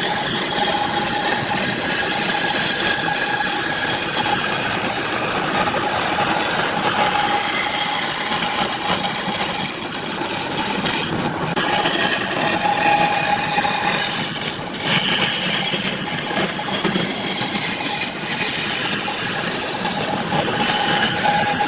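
Electric woodworking power tool running steadily with a motor whine and rough cutting noise, dipping briefly a couple of times.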